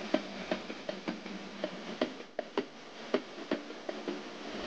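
Mountain bike rattling as it rides along pavement: light, irregular clicks and ticks, about three or four a second.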